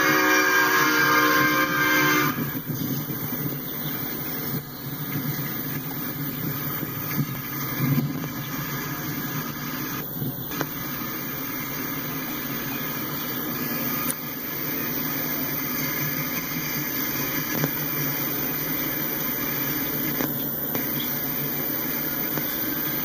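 Autorack freight cars rolling past, a steady rumble of steel wheels on rail with a few short clanks. A horn blast cuts off about two seconds in.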